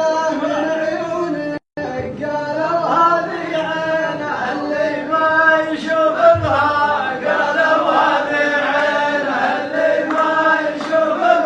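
Male voices chanting a melodic Arabic poem (sheilah) in long, held sung lines. The sound cuts out for a moment about two seconds in.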